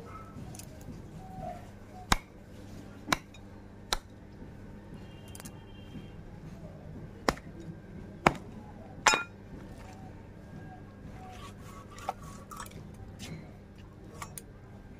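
Heavy knife chopping pieces of raw country chicken on a wooden log block: a series of sharp, irregularly spaced chops, about eight in all, some with a metallic clink.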